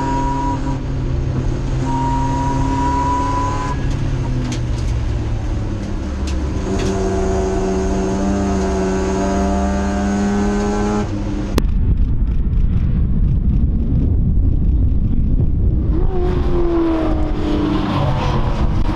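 Race touring car's engine heard from inside the cabin under power, its note rising slowly with two drops at gear changes. About two-thirds through, the sound cuts to trackside, where race cars go past and one engine note falls away as a car passes near the end.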